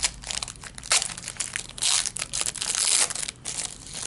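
A trading card pack's wrapper being torn open and crumpled by hand: dense crinkling and tearing in irregular bursts, loudest about two to three seconds in, dying away at the end.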